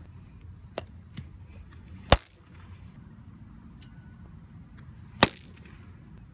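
Two sharp pops of a pitched baseball smacking into a catcher's mitt, about three seconds apart, with a couple of faint ticks before the first. The second pop is a changeup clocked at 82 mph.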